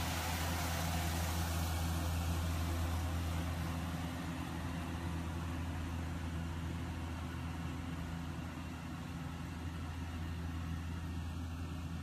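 Steady engine drone of a small rice combine harvester working the field, heard from indoors behind glass, easing a little as the machine moves off.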